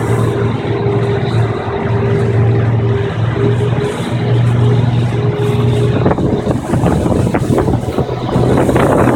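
Tour boat's engine running steadily under way, a low hum over the rush of wind and water. About six seconds in, the engine's higher tone drops away and gusty wind on the microphone grows louder.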